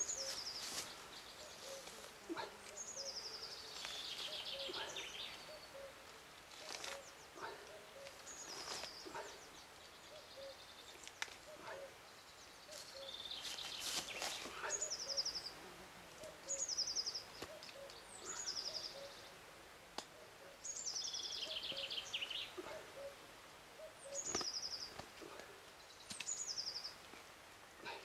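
A songbird singing over and over in short phrases that drop in pitch, the loudest sound, with faint, evenly spaced low pips behind it. Scattered rustles and clicks come from the roe deer's hide being pulled and worked off the hanging carcass.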